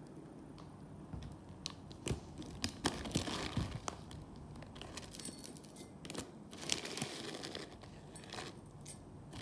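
Plastic bag of muesli crinkling as it is handled, and a spoon scooping dry muesli into a glass mug: irregular rustles and clicks, busiest in two spells.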